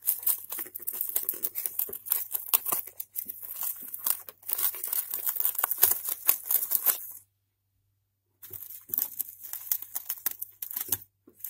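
Gerbils gnawing and shredding cardboard and paper and rustling in wood-shaving bedding: a dense, fine crackle of small tears and scratches. It breaks off for about a second in the middle, then carries on.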